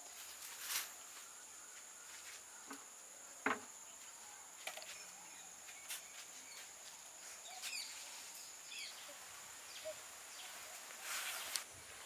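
Steady, high-pitched chorus of insects outdoors, with a few short clicks and chirps scattered through it; a sharp click about three and a half seconds in is the loudest.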